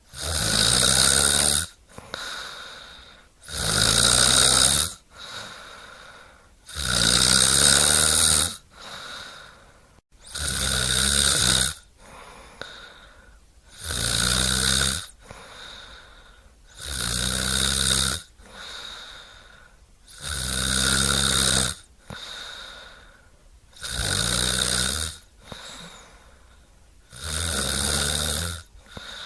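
Rhythmic snoring: nine loud, rattling snores, about one every three and a half seconds, each lasting about a second and a half, with quieter breathing between them.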